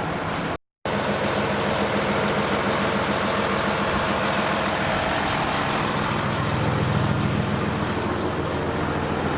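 Bus engine running steadily with a low hum, cut off by a brief moment of silence just under a second in.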